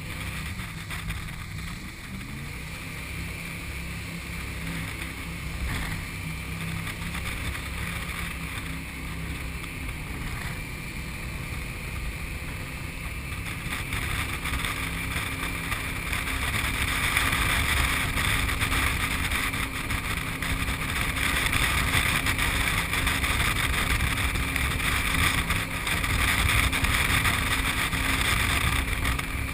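Jet boat running along a river: a steady engine drone under rushing water and wind. It grows louder about halfway through.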